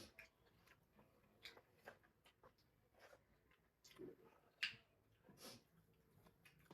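Faint eating sounds: scattered soft mouth clicks and smacks of chewing, with one slightly louder click about four and a half seconds in.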